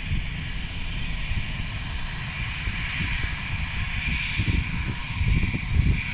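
Airliner engines running with a steady high whine that swells about halfway through, over a gusty low rumble.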